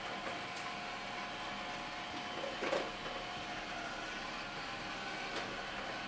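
Roidmi Eva robot vacuum-mop running as it drives along the floor: a steady motor hum with faint whining tones, and a brief knock about two and a half seconds in.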